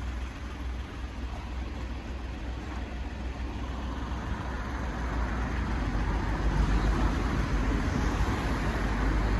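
A motor vehicle's engine running, with a deep rumble and a noisy hiss over it, growing louder about halfway through.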